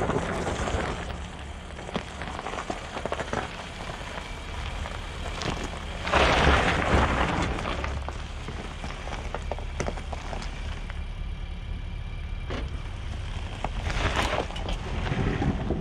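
A 2022 Nissan Armada driving slowly on an off-road dirt trail: a low steady rumble from the engine and driveline under crackling tyre noise with scattered sharp clicks. Two louder rushes of noise come about six and fourteen seconds in.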